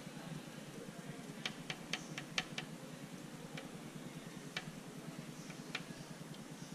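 Light, sharp ticks of a handheld drawing tool's tip striking paper: a quick run of about six taps a couple of seconds in, then single taps about a second apart, over a steady low hum.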